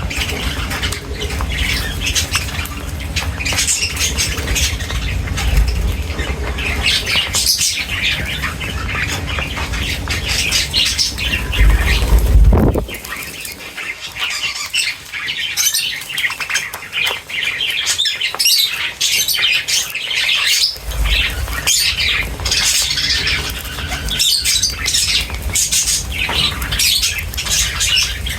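A flock of small birds chirping and twittering densely and continuously, over a low rumble that cuts off about halfway through and returns later.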